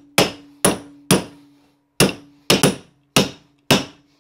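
A hammer striking a carpet tucker about nine times in sharp, uneven blows, roughly two a second, driving a stair runner down into the crease of the step.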